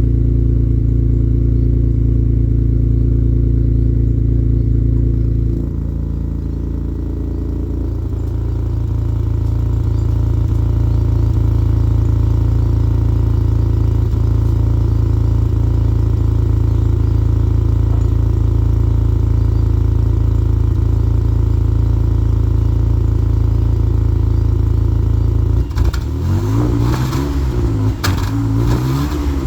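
Pontiac GTO V8 running through Varex valved mufflers: it idles, the idle steps down about six seconds in and settles lower, then near the end the engine is revved up and down in several quick blips.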